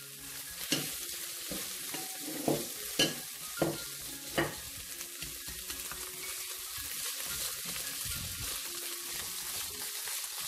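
Minced pork, preserved olive vegetable and diced broccoli stems sizzling in a hot nonstick wok as they are stir-fried with chopsticks. About six sharp chopstick taps in the first half, then a steady sizzle.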